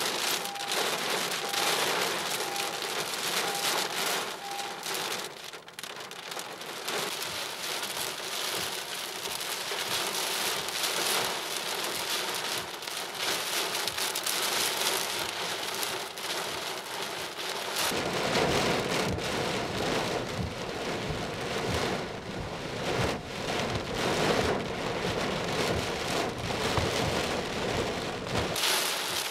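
Heavy thunderstorm rain, driven by a strong downdraft, pounding a car's windshield and body in a steady dense roar. A run of about six faint, evenly spaced beeps sounds in the first few seconds. About two-thirds of the way in the sound turns fuller and heavier.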